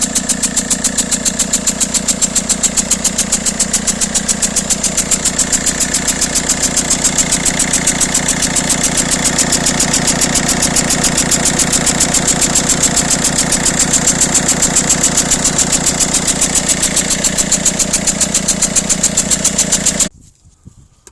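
PSA DV6 1.6 HDi four-cylinder diesel engine idling with an even, rhythmic puffing of about six or seven beats a second. This is exhaust gas blowing past a leaking injector seal between the injector well and the cylinder head, a known fault on this engine. The engine sound cuts off suddenly near the end.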